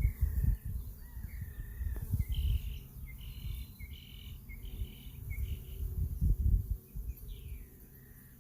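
A bird calling a quick run of about five short, high notes, then a couple of down-slurred notes near the end, over uneven low rumbling.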